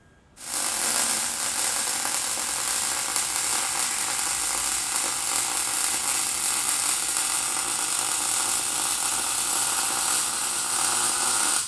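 Lincoln Electric 140 MIG welder's arc crackling steadily while a bead is run on the steel stack pipe. It starts about half a second in and holds an even level throughout.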